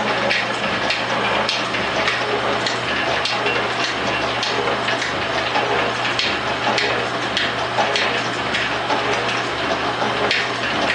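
Rhodes metal shaper running and cutting, its ram stroking back and forth with a slow regular beat over a steady motor hum, and frequent clacks and rattles from the mechanism and tool. A die filer runs alongside it.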